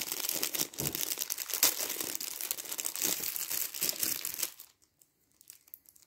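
Clear plastic packaging crinkling as it is handled: a dense run of crackles and rustles that stops about four and a half seconds in.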